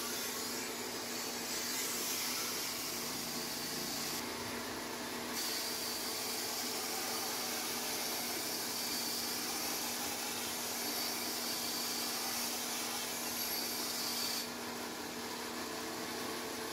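A 6x48-inch belt sander running with a 120-grit ceramic belt, grinding the edge of a long steel knife blade in a steady hissing grind. The grind breaks off briefly about four seconds in, resumes, then stops about two seconds before the end as the blade is lifted off. The sander's motor hums on.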